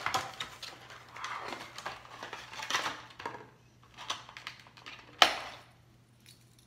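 Stiff clear plastic clamshell packaging being pried open by hand: crinkling and clicking of the plastic, then one sharp snap about five seconds in as it comes apart.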